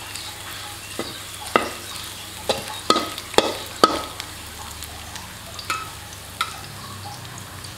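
Chopped garlic and coriander root frying in hot oil with a steady sizzle, being stirred until fragrant. A spatula knocks against the pan six times in the first four seconds and twice more, more softly, later on.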